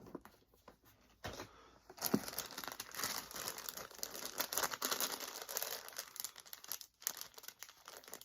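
Packaging being handled, crinkled and torn, with a few light clicks at first and then from about two seconds in a dense, continuous crackle.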